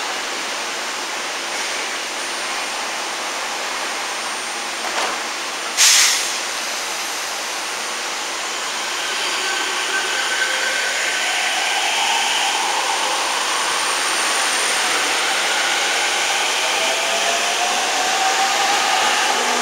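E231-series electric commuter train at a station platform: a steady hiss, then a short loud burst of hiss about six seconds in as the doors close. The train then pulls away, its traction motors whining in slowly rising pitch over the running noise.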